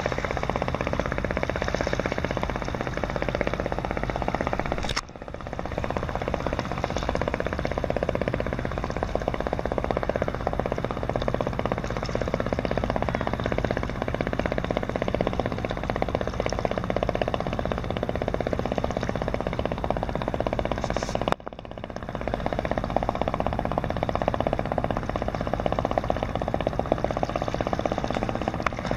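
Boat engine running steadily with a low, even drone. The level drops suddenly and briefly twice: about five seconds in and again a little past twenty-one seconds.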